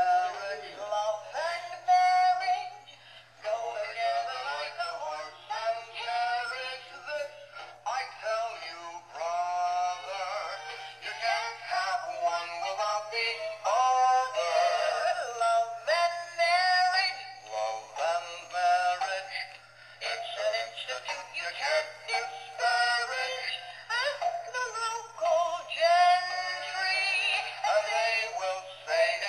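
A pair of animated plush teddy bears, dressed as bride and groom, singing a song with backing music through their small built-in speaker. The sound is thin, with no bass.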